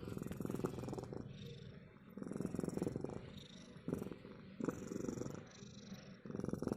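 A cat purring close up, a steady low pulsing that swells and fades in a slow, regular cycle about every two seconds.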